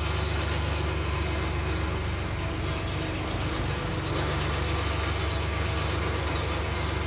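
Steady low machine hum with a constant hiss over it, unchanging throughout.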